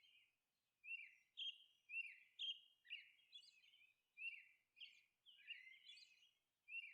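Faint bird chirping: short chirps that fall in pitch, about one or two a second.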